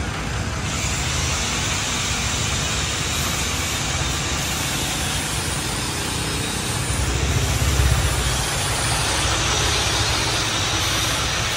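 John Deere 5310 tractor's three-cylinder diesel engine running as the tractor is driven slowly and manoeuvred. It gets louder for a couple of seconds past the middle.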